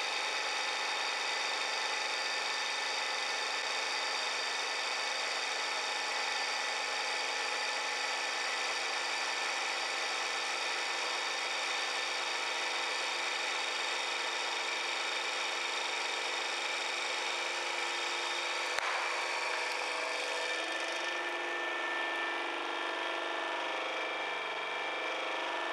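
Hydraulic press pump motor running with a steady whine as the ram presses down on bags of Skittles. A single sharp pop about 19 seconds in as a bag bursts under the ram, after which the whine changes tone.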